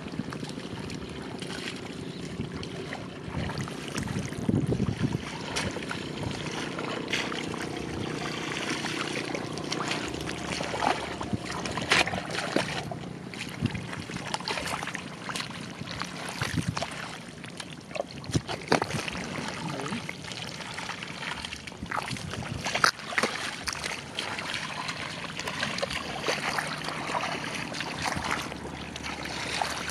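Sloshing and splashing in shallow muddy water, with many scattered sharp splashes and slaps all through.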